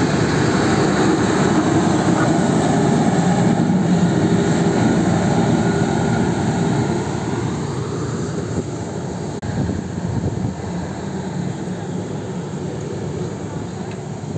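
Passenger train running past a level crossing: a loud steady rumble of coaches on the rails that drops off about seven seconds in as the last coach passes, then fades away. One sharp click comes near the end.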